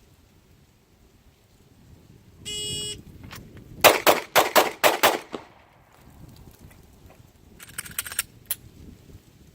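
A shot timer's electronic start beep, then, a little over a second later, six rapid 9mm pistol shots from a Glock 43, fired within about a second and a quarter. About 2.6 seconds pass from the beep to the last shot. Near the end comes a quick cluster of fainter sharp clicks.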